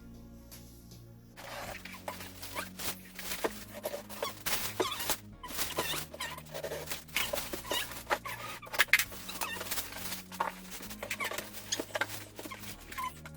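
Cardboard box and packaging being opened by hand: a dense run of scrapes, rustles and clicks starting about a second and a half in, over quiet background music with held low notes.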